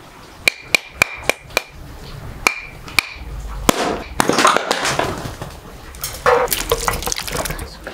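A series of sharp knocks, about eight in the first four seconds at uneven spacing, as a hard object strikes something that rings briefly and high after several of the strokes.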